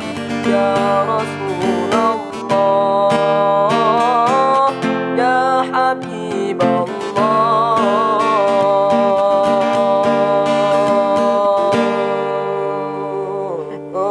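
GWC 235 NA acoustic guitar strumming chords, with a melody over them that bends and wavers in pitch.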